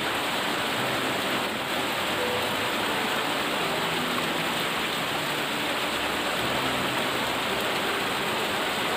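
Steady rushing noise of the river's flowing water.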